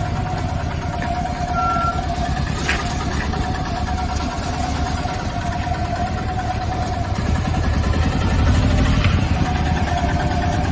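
Mahindra Jeeto mini truck's small diesel engine running at low speed as the truck manoeuvres. It gets louder about seven seconds in, as the truck pulls forward.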